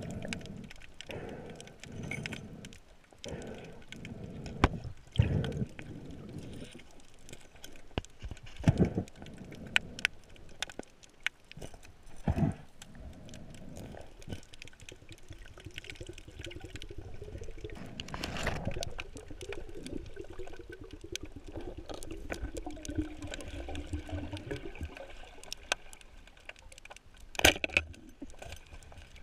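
Underwater sound of a diver's surroundings: gurgling swells of bubbles every few seconds, with scattered sharp clicks and knocks of gear, and a louder click near the end.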